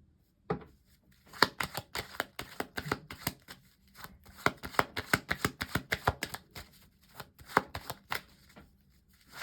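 Tarot deck being shuffled by hand: rapid runs of light card flicks and slaps, pausing briefly about four seconds in and stopping shortly before the end.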